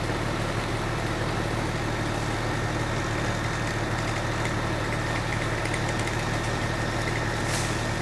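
A crane's engine running steadily at idle, a constant low drone. A short hiss near the end.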